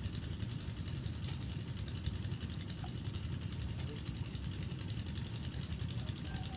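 A small engine running steadily, a continuous low rumble with a fast, even pulsing.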